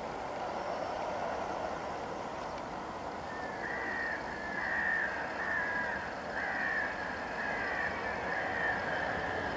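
A crow cawing, a run of about eight harsh calls starting about three seconds in. Underneath is the steady whine and rush of the airliner's jet engines at low taxi power.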